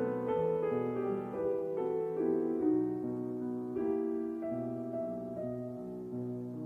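Soft piano music: slow, gentle notes, getting gradually quieter.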